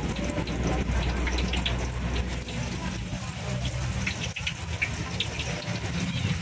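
Hot oil sizzling steadily in a wok as battered tofu stuffed with bamboo shoots deep-fries, with a steady low rumble underneath.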